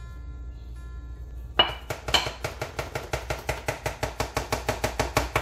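A spatula knocking and scraping rapidly against a mixing bowl, about six strokes a second, as thick peanut butter is stirred into wet batter. It starts about one and a half seconds in.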